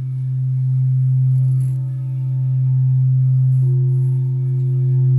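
Large frosted quartz crystal singing bowls played with a mallet: one steady low hum with overtones that swells and eases in loudness. A second, higher tone joins a little past halfway.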